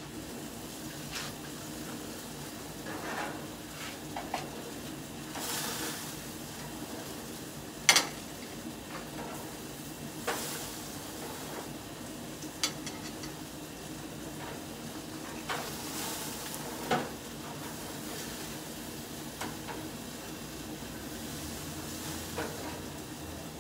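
Burgers sizzling on a propane gas grill under a steady hiss, with scattered clanks and scrapes of metal on the grill; the loudest clank comes about a third of the way in.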